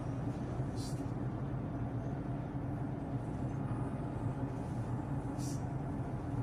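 Car engine and tyre noise heard from inside the cabin while driving steadily along an open road, with two brief hisses, one about a second in and one near the end.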